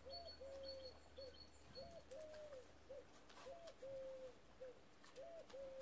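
A dove cooing softly, a three-note phrase (short, long, short) repeated about every two seconds, with faint high chirps of a small bird in the first couple of seconds.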